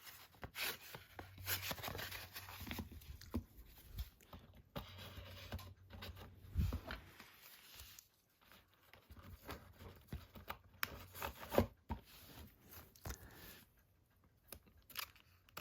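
Packaging and set contents handled by hand: irregular rustling and scraping with small taps and clicks, as in unwrapping and sorting items.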